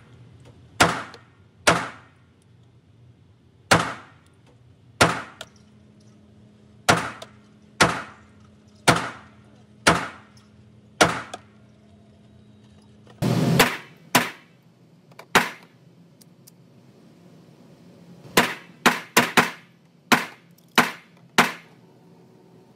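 Gunshots at an indoor shooting range, echoing off the range walls. About a dozen single shots come roughly a second apart, then after a short pause a quicker string of about seven.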